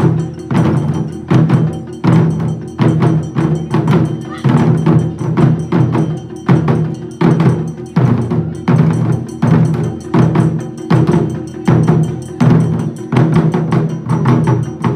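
Taiko ensemble: several players beating barrel-shaped nagado-daiko drums with wooden bachi sticks in a steady, regular beat. Deep drum booms alternate with lighter, sharper strokes between the main beats.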